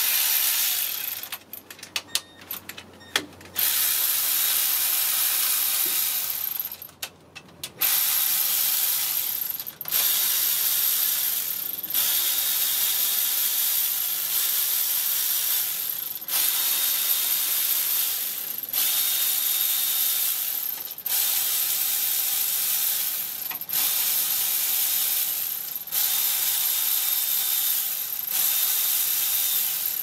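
Power ratchet spinning bolts out of an engine's cylinder head in repeated bursts of about two seconds, with short pauses between them.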